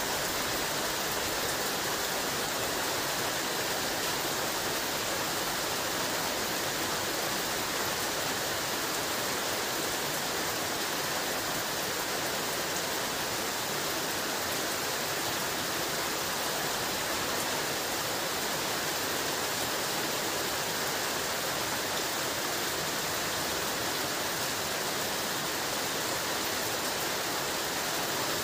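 Heavy rain falling steadily: a dense, even hiss with no breaks or thunder.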